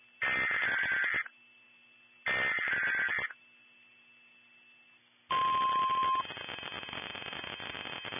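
NOAA Weather Radio's SAME alert header: two one-second bursts of two-tone warbling data about two seconds apart. About five seconds in, a steady tone near 1 kHz, the NWR warning alarm tone, sounds briefly at the start of a loud hiss that carries on.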